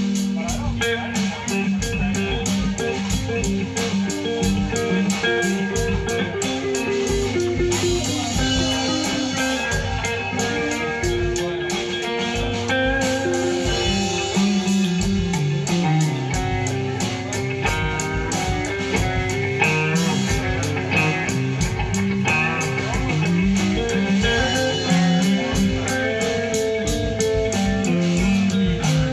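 Live band playing an instrumental passage: electric guitar lines over bass guitar, with drums keeping a steady beat.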